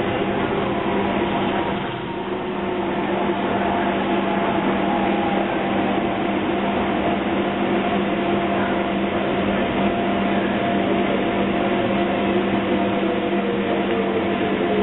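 Docklands Light Railway train heard from inside the car as it runs: a steady hum and the whine of its electric traction motors over rolling noise. The whine falls slowly in pitch over the last few seconds as the train slows towards a station.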